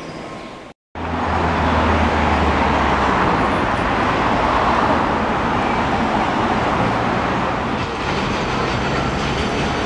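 City street traffic: a steady rush of passing cars, starting suddenly about a second in after a short gap, with a heavier vehicle's low engine hum in the first couple of seconds.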